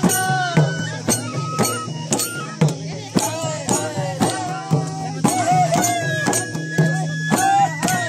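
Folk song: singing over a steady beat of sharp percussion strikes with a rattling jingle.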